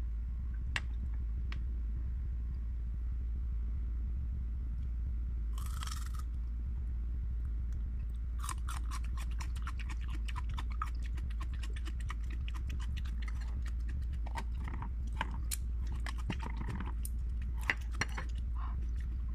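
Close-up crunchy chewing of raw onion and garlic, many rapid crunches starting about eight seconds in after a brief rustle, over a steady low electrical hum.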